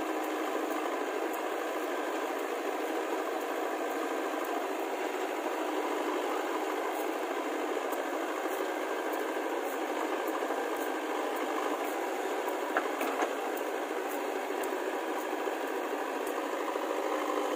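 Diesel engine of a JCB 3DX backhoe loader running steadily while it works its backhoe arm, digging and swinging soil over to a tractor trolley, with a few faint clicks.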